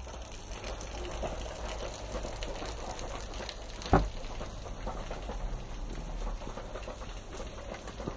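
Steady background hiss of a shop with a low hum, and one sharp knock about four seconds in.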